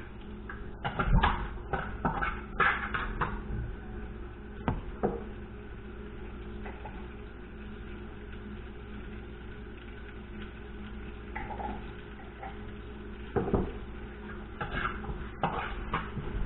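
Metal cookware and utensils clinking and knocking against a pan on the stove: a cluster of sharp clinks in the first few seconds, a single knock about five seconds in, and more clatter near the end, over a steady low hum.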